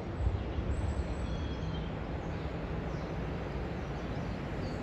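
Low, steady rumble of two Class 66 diesel-electric locomotives (EMD two-stroke V12 engines) approaching at a distance running light engine, with a few short bird chirps over it.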